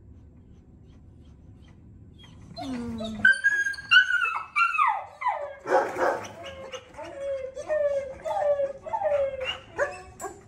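German shepherd whining and whimpering through the kennel bars: high cries that fall in pitch start about two and a half seconds in, then become a string of shorter whines about twice a second. There is a single rough bark about six seconds in.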